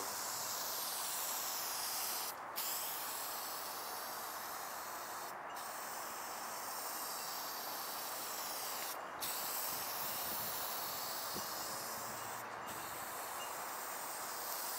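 Aerosol spray-paint can spraying in a steady hiss, stopping briefly four times, about every three seconds, as the nozzle is let off and pressed again.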